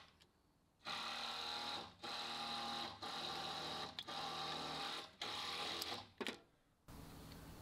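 Socket ratchet clicking in five quick runs of about a second each, separated by short pauses, as it backs out a connecting-rod bolt inside the crankcase of a Kohler MV18S opposed-twin engine.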